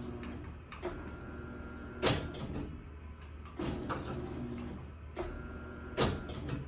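Garage door opener being tried: a steady low hum with sharp clicks and knocks every second or two, and short stretches of a faint steady whine between them.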